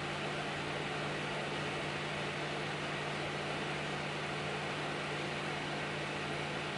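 AMD Radeon RX 6900 XT reference cooler's three axial fans running steadily at about 70% speed, around 2000 RPM. They make an even airy rush with a low hum underneath.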